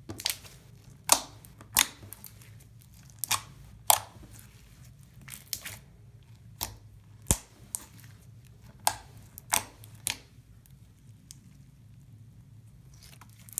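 Slime being squeezed and pressed by hand, giving irregular sharp pops and clicks as air pockets burst, with short quiet gaps between.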